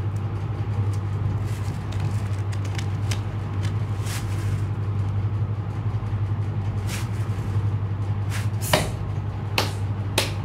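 A steady low hum runs throughout, with scattered sharp clicks and taps that come loudest and most often in the last couple of seconds.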